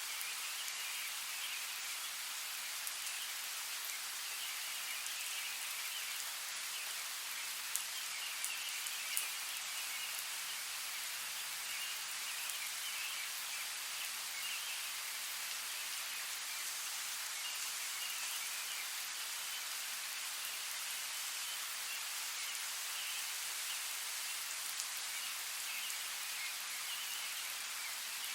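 Steady rainfall in a forest: an even hiss of rain on leaves, with a few louder drops ticking close by, two of them about 8 and 9 seconds in. A faint high flickering comes and goes underneath.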